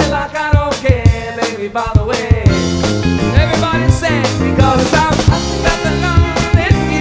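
Live band playing an upbeat song: a steady drum-kit beat, bass guitar and guitar, with a bending melody line over them.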